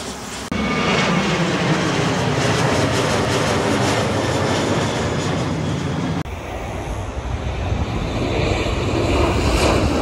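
Jet airliners passing low overhead on final approach, their engines giving a loud steady roar with a falling pitch as the first one goes over. The sound changes abruptly twice where one flyover gives way to the next, and the last jet grows louder toward the end.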